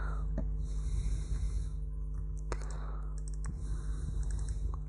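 Several sharp computer mouse clicks over a steady low electrical hum and background hiss.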